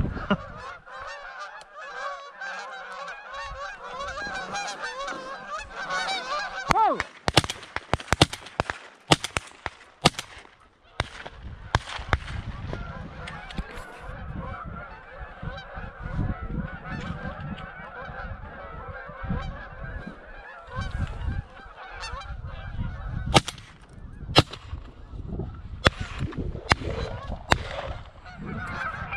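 A flock of geese honking continuously, many calls overlapping. Sharp knocks and rustling from the camera being handled break in, several in a row about a third of the way in and again near the end.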